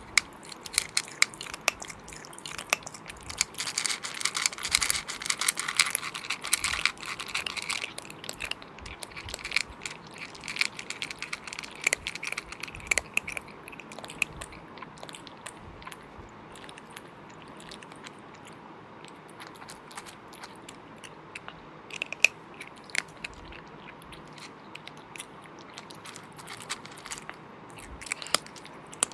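Close-miked eating sounds from a cooked animal head: wet chewing, smacking and crunching. The sounds are dense through roughly the first fourteen seconds, then sparser, with one sharp crunch about 22 seconds in.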